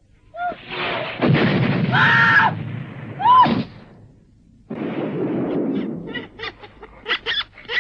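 Cartoon sound effects of a bombardment: loud explosions, with short shrill cries over them and a run of quick sharp cracks near the end.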